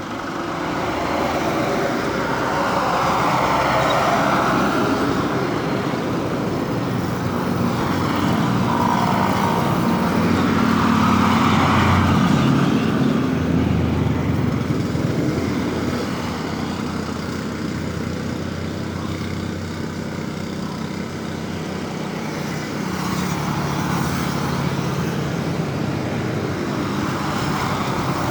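Road traffic: several vehicles driving past one after another, engine and tyre noise swelling and fading as each goes by, loudest about four and twelve seconds in.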